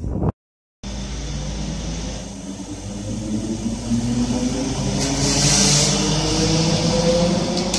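Electric passenger train with blue-and-white coaches moving off past the platform, its traction motors whining in several tones that slowly rise in pitch as it gathers speed. A burst of hiss comes about five seconds in, after a brief silent cut near the start.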